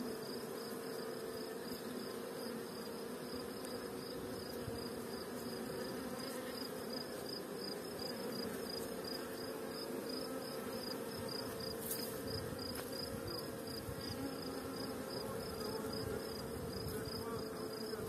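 Honeybee swarm clustered on a tree branch, buzzing: a steady, dense hum of many bees, with a fast, even, high-pitched pulsing behind it.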